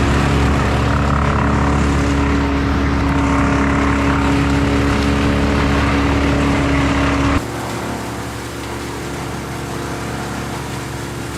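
Large engine of heavy tree-work machinery running steadily at a constant speed. About seven seconds in, the sound cuts abruptly to a quieter, steady machine hum.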